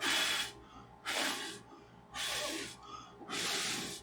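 Four short puffs of breath, about one a second, blown by mouth onto the trackball's circuit board to clear it after soldering in new switches.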